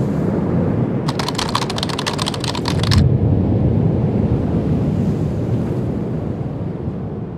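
Title sound design: a deep, steady rumble with a rapid run of sharp clicks between about one and three seconds in. The rumble swells as the clicks end, then slowly fades.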